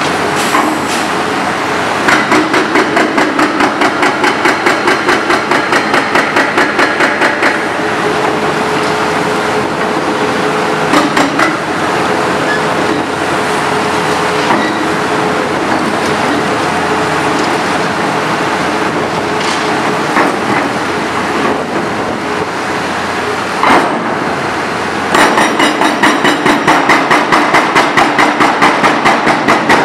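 Hydraram FX 680 hydraulic hammer on a Doosan DX 490LC-3 excavator pounding in two runs of rapid, even blows, about four a second. The first run starts about two seconds in and lasts about five seconds; the second fills the last five seconds. Between the runs the excavator's engine runs steadily, with a few single knocks.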